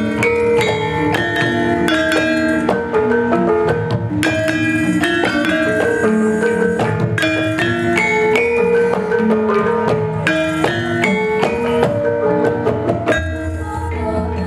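Javanese gamelan ensemble playing: bronze metallophones struck with mallets ring out in a steady pattern over kendang hand drums.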